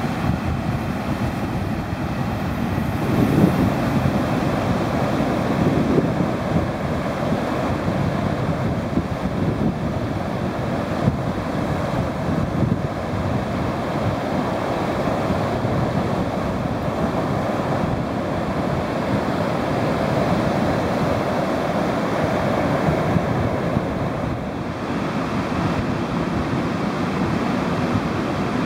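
Steady rushing of surf breaking and washing onto the beach, mixed with wind buffeting the microphone.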